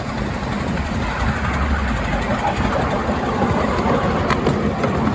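Miniature railway train running, heard from a passenger car behind the locomotive: a steady engine and track noise.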